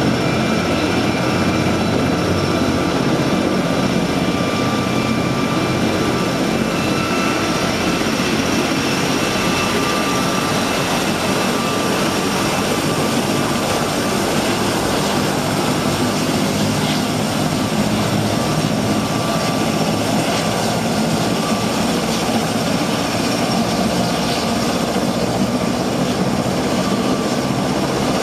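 MV-22 Osprey tiltrotor's two Rolls-Royce turboshaft engines and proprotors running steadily as it taxis in helicopter mode, a dense rotor noise with a steady turbine whine over it.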